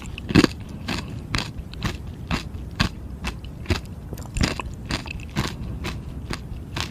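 Close-up crunching of frozen ice being bitten and chewed, sharp crunches coming about twice a second.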